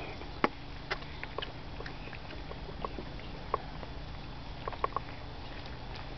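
Cats moving about and nibbling in loose wheat grass: about ten scattered light clicks and taps, the loudest just under half a second in, over a steady low hum.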